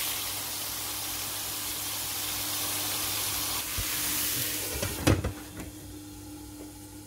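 Diced chicken breast sizzling in a frying pan. About five seconds in, a glass lid knocks onto the pan, and the sizzle turns quieter and muffled.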